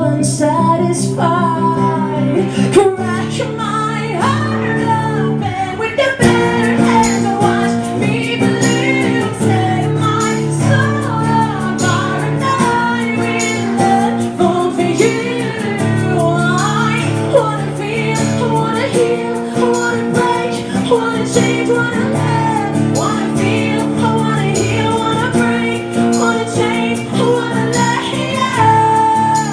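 Live stripped-back rock band music: a woman singing over acoustic guitar and steady held chords. The accompaniment fills out about six seconds in.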